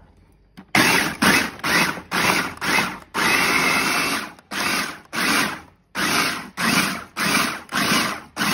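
Food processor pulsed in short on-off bursts, about two a second, with one longer run of about a second in the middle, coarsely chopping frozen sorrel and soaked currants, raisins and prunes.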